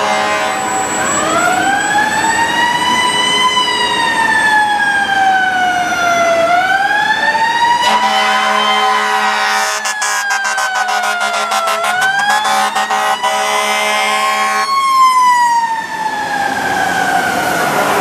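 Fire truck's siren wailing, rising and falling in pitch about every five seconds. From about eight seconds in to near fifteen seconds, a long, steady blast of the truck's heavy air horn sounds over it.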